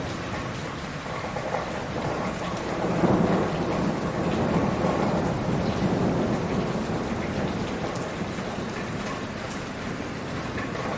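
Heavy rain falling steadily. A low rumble swells about three seconds in and fades away over the next several seconds.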